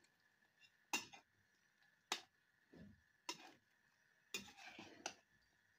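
Metal ladle stirring a pot of lamb curry, clinking against the pot about five times, with short scrapes and sloshes after some of the knocks. A faint steady high tone runs underneath.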